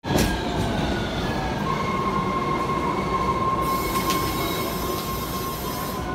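MBTA Red Line subway train rolling into an underground station and braking to a stop: a low rumble under a steady high squeal as it brakes, with a high hiss joining just past halfway.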